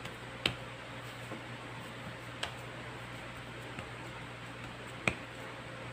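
Hands pressing and patting dough on a plastic chopping board, giving a few light taps and clicks, the sharpest about half a second, two and a half and five seconds in, over a steady low hum.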